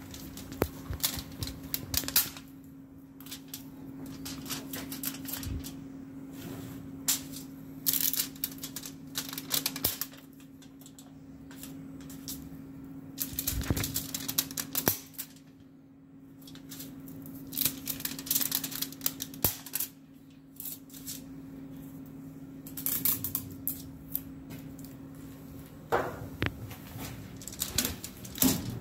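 Hookah aluminium foil rewinding machine running with a steady low hum, over irregular crackling and rustling of the foil and spells of sharp clicking as the foil is wound and handled.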